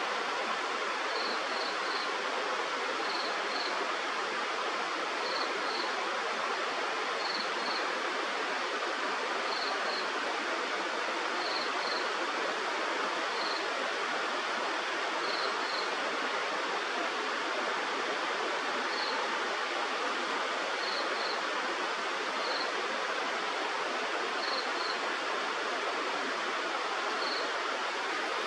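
Steady rush of flowing river water, with a short high chirp, mostly given twice in quick succession, repeating every two seconds or so.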